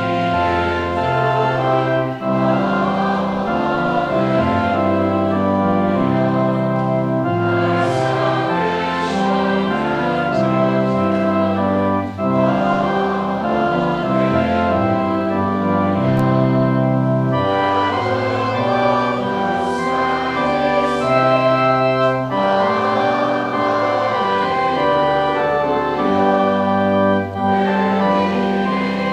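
Church organ playing a hymn in slow, sustained chords, with a congregation singing along.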